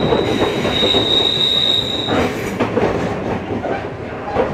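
Electric commuter train running on the rails, its wheels squealing in one steady high tone that stops about two seconds in, over the rumble of the running gear and a few clacks of wheels over rail joints.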